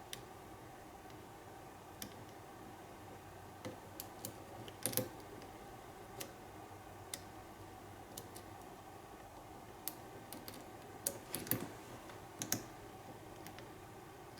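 Lock pick clicking against the pins inside an American pin-tumbler padlock being single-pin picked under a tension wrench. Scattered, irregular light clicks, bunched about five seconds in and again near the end.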